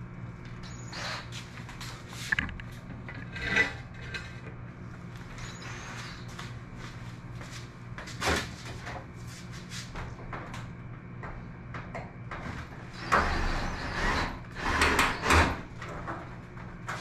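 Scattered clunks, scrapes and rattles of hands working at a sectional metal garage door, fitting 1.5-inch PVC pipe couplers that hold fishing rods. The loudest come in a cluster near the end, over a steady low hum.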